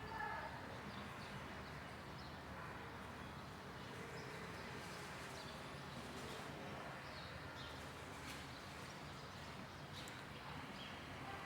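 Faint, scattered bird chirps over a steady hiss of outdoor background noise.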